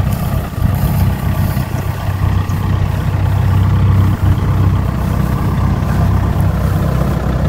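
Rice combine harvester's engine running steadily as the machine cuts rice, a constant low drone.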